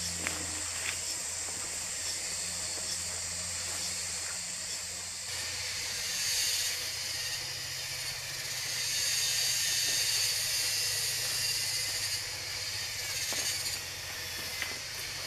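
Forest ambience: a steady high-pitched hiss that grows louder about six seconds in, over a faint low hum.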